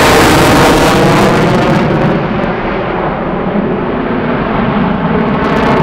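F-35 Lightning II's single turbofan engine in afterburner, a loud jet roar as it flies by. About two seconds in the hissing top end fades as it moves away, leaving a low rumble.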